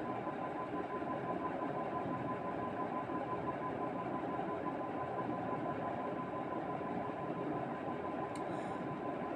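A steady mechanical hum with a constant thin whine, unchanging throughout.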